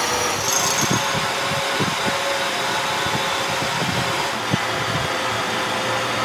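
Steady mechanical whirring noise of workshop machinery, with a few light knocks.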